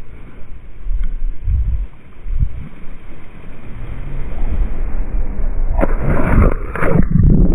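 Wind buffeting and handling noise on an action camera's microphone as a man jumps off a rock into the sea, with a loud rush of air and noise during the fall about six seconds in. Near the end the camera hits the water and the sound turns to a muffled underwater rumble.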